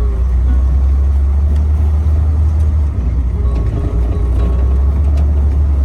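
A car driving, with a loud, steady low road rumble and faint music playing over it.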